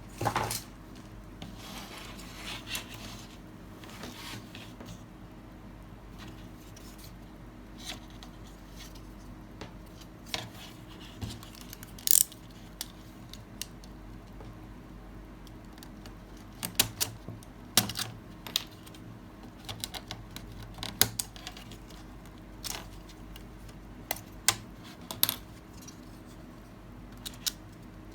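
Scattered sharp clicks and taps of small hard plastic parts and hobby tools being handled while a plastic model kit is assembled, with a soft rustle in the first few seconds and a low steady hum underneath.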